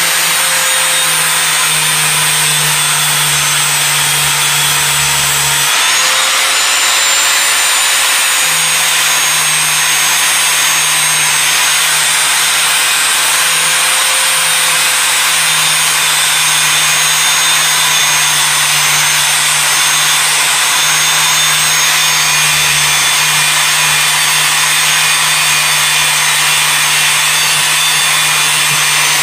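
Angle grinder running continuously, grinding rust off the steel head of an antique hatchet and throwing sparks: a loud, steady grinding hiss over the motor's high whine.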